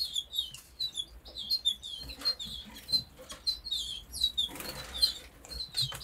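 A shed full of canaries and goldfinch × canary mules chirping and twittering, quick high calls overlapping throughout, with short rustles about two seconds in and again near five seconds.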